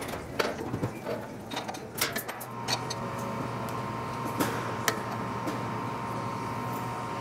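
Light metal clicks and taps of a wrench and a pliers wrench being set onto an aluminium AN fitting on an oil cooler and tightened. From about two and a half seconds in, a steady hum with a faint high whine runs underneath.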